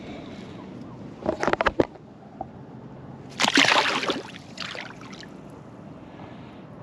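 A spiny dogfish shark dropped back into the water: a loud splash about halfway through as it hits the surface and thrashes, followed by a smaller splash. Earlier, a quick run of sharp slaps or knocks as the fish is handled at the gunwale.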